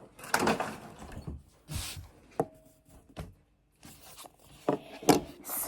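Toy packaging and plastic parts being handled: short rustles and crinkles with several sharp clicks and taps, the loudest near the end.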